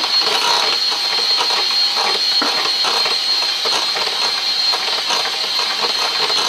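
Electric hand mixer running steadily with a high whine, its wire beaters whisking a thin batter and clicking and rattling against a glass bowl.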